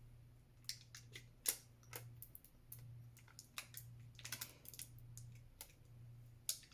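Irregular light clicks and taps of fingers pressing and rubbing vinyl transfer tape onto a glass, with a steady low hum underneath.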